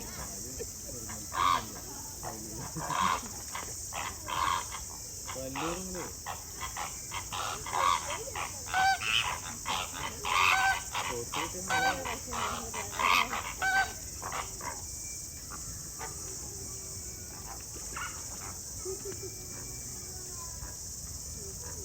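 Greater flamingos honking: a flock calling in a quick run of short honks from about a second and a half in until about fourteen seconds, when the calls stop.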